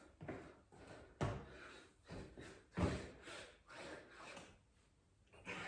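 Heavy breathing and the thumps of hands and feet landing on a stone floor as a person does burpees with push-ups, in irregular bursts, the loudest about a second and three seconds in.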